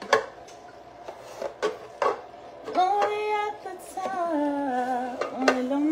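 A few sharp plastic clicks and knocks as the parts of a juicer are handled, then from about three seconds in a woman singing long, held notes that slide down in pitch.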